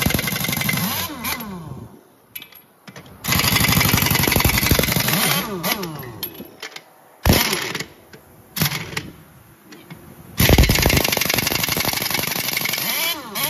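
Heavy impact wrench hammering on the lug nuts of a semi truck's dual rear wheel in several bursts a few seconds long, with two short blips between them. Its motor whines down in pitch each time the trigger is released.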